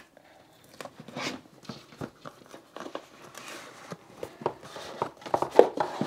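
Cardboard packaging being handled and opened, with scattered scrapes, taps and light rustling; the loudest knocks come near the end.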